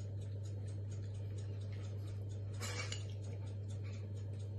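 Metal spoon clinking and scraping in a small porcelain bowl: many small ticks, with a longer scrape about two and a half seconds in. A steady low electrical hum runs underneath.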